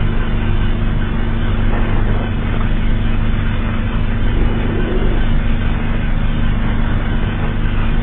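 Fictional emergency alert (EAS-style) alarm: a loud, steady, unchanging low drone with a rough hiss over it.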